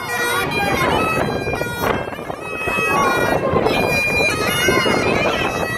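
Scottish Highland bagpipes playing a tune, the chanter stepping between held notes over the steady drone.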